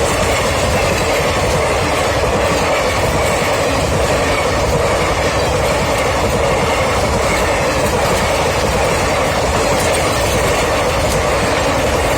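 A train running along the track, a loud, steady rumble of wheels and cars without a break.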